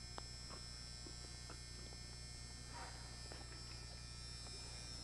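Faint, steady electrical mains hum with a high whine over it, broken only by a few faint ticks.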